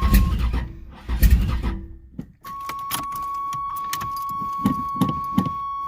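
Starter motor trying to turn over a 454 big-block V8 without catching: two sluggish cranking surges, then a run of irregular clicks, the sign of a weak or flat battery. A steady high-pitched tone sounds alongside.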